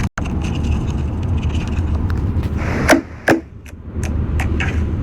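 Slime being squished and worked by hand, giving a dense run of small sticky clicks and crackles, with two sharper pops about three seconds in.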